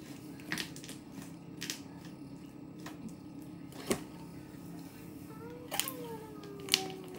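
Slime being squeezed and pulled by hand, giving about six scattered sharp clicks and pops over a faint steady hum. Near the end a long tone slides slowly down in pitch.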